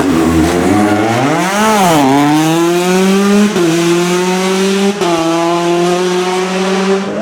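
Rally car engine revving: a quick blip up and down, then accelerating with a rising pitch, broken by two upshifts about three and a half and five seconds in.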